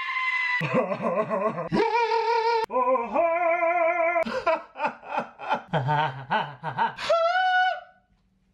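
A man singing a cappella into a handheld microphone. Held notes with vibrato alternate with quick, choppy vocal syllables, and the last held note cuts off near the end.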